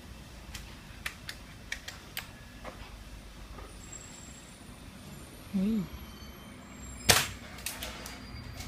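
Bolt-action airsoft sniper rifle fired once about seven seconds in: a single sharp crack, the loudest sound, followed by a few light clicks. Before it come scattered small clicks of the rifle being handled and a brief low vocal sound.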